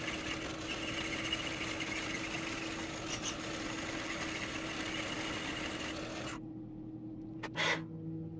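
Metal lathe running, its cutting tool turning a taper on a spinning part as the compound slide is fed by hand. The cutting noise stops abruptly about six seconds in, followed by a couple of quick knocks.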